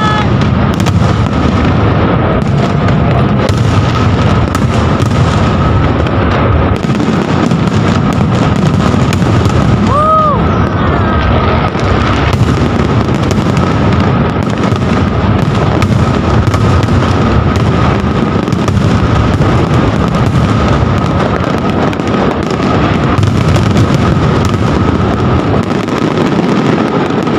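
Aerial fireworks display going off in a dense, unbroken barrage of booming bursts and crackle, many shells at once with no pause.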